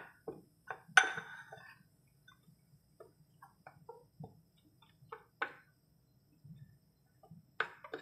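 Metal spoon stirring spices into dry chickpea flour in a bowl: scattered light scrapes and taps of the spoon against the bowl, with one sharper ringing clink about a second in.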